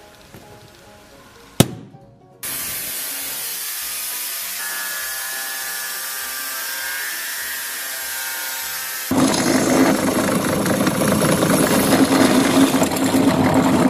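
A single sharp knock, then an angle grinder cutting sheet steel with a steady hiss for several seconds. About nine seconds in it stops and a drill takes over, louder and rougher, boring holes through the metal sheet.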